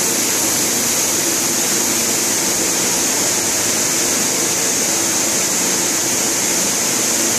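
Steady, loud running noise of textile factory machinery: an even hiss, strongest in the high range, over a faint low hum, with no breaks or changes.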